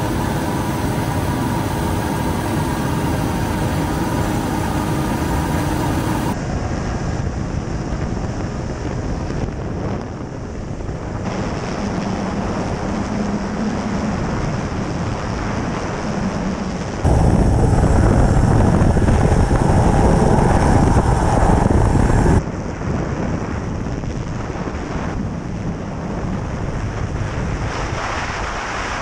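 Helicopter rotor and turbine noise heard from aboard the helicopter, with wind buffeting the microphone. The sound changes abruptly several times. A steady whine sits in the first few seconds, and it grows louder for about five seconds past the middle.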